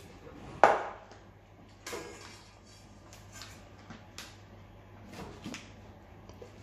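Stainless steel saucepan and spoon clunking against a stainless steel mixing bowl as a thick cooked cornstarch and condensed-milk mixture is poured, a sharp knock with a short ring about half a second in and a few quieter knocks after.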